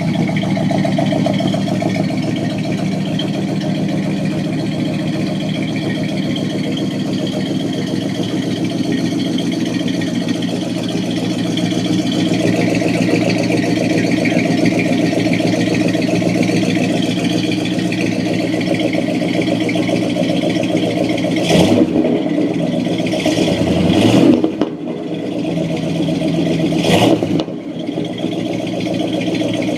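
A 1973 Cadillac Coupe DeVille's 472 cubic-inch V8 idling steadily, then revved three times in quick succession in the last third, each rev rising and dropping back to idle.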